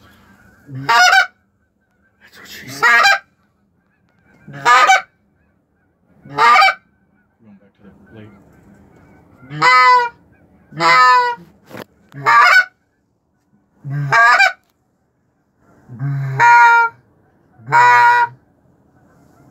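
Geese honking: about ten loud, separate honks, one every second or two.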